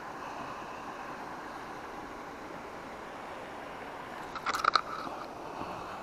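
Steady outdoor hiss of wind and water, with a brief cluster of sharp clicks and rattles about four and a half seconds in.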